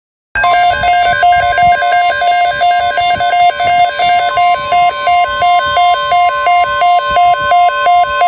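NOAA Weather Radio 1050 Hz warning alarm tone, a steady high electronic tone that cuts in abruptly, signalling that an urgent weather message follows. Over it, a second electronic alert warbles between two pitches about three times a second.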